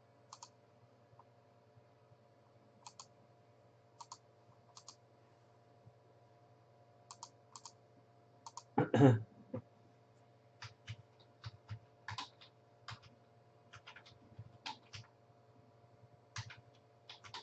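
Scattered light clicks and taps, sparse at first and more frequent in the second half, with one louder thump about nine seconds in, over a faint steady electrical hum.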